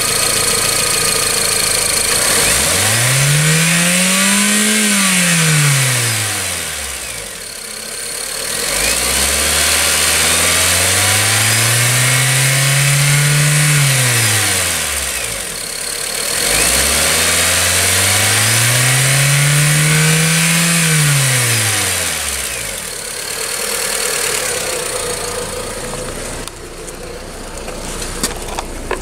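Honda R18A2 1.8-litre four-cylinder engine revved three times. Each time the pitch climbs over a few seconds and falls back toward idle, the first rev going highest. It then settles to a steadier run, with a few clicks near the end.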